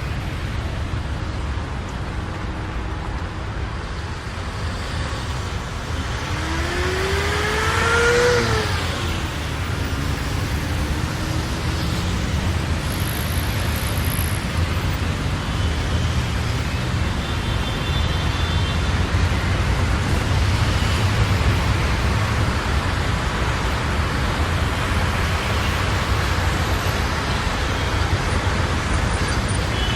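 Steady rumble of road traffic. Around eight seconds in, one vehicle's engine rises and then falls in pitch as it goes by, the loudest moment.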